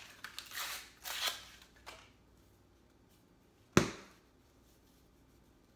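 Pillsbury crescent roll can being opened: the paper wrapper is peeled off with a rustle, then, nearly four seconds in, the pressurised cardboard tube bursts open at its seam with one sharp, loud pop.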